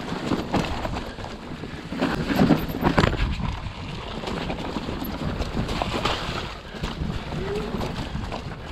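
Electric full-suspension mountain bike riding down a rough trail: tyres rolling and knocking over stones and roots, the bike rattling, with wind rushing over the action camera's microphone. The knocks come thickest and loudest about two to three seconds in.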